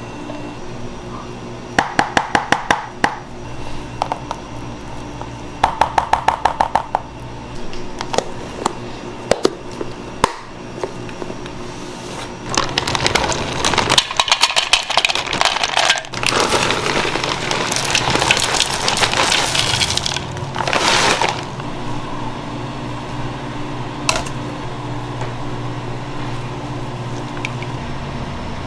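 Soft background music with kitchen handling sounds: two quick runs of rapid clicking taps as a silicone spatula is knocked against a plastic tub to shed fruit purée, then a long stretch of rustling as cocoa powder is shaken out of a packet into a measuring jug.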